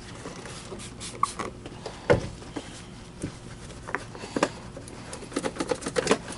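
Cloth rubbed and scrubbed against the hard plastic housing of a Miele canister vacuum to clean off paint marks: irregular scratchy rubbing strokes and small knocks of the hand and housing, with one louder thump about two seconds in.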